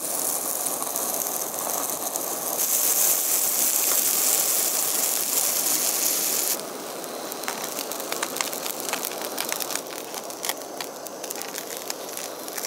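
Fish fillet frying in melted butter in a pan, sizzling steadily. About two-thirds of the way in the sizzle drops suddenly, and quick popping crackles of spattering fat run through the rest.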